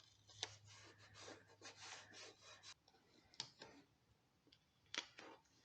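Faint rubbing and scratching of paper and painter's tape being pressed and smoothed by hand onto a metal tractor grille, with a few small sharp clicks.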